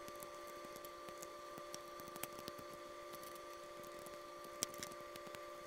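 Faint small clicks and ticks of a precision screwdriver and fingers working the screws and cable connectors of a MacBook Air logic board. A couple of the clicks are sharper, about two seconds in and halfway through, over a steady faint hum.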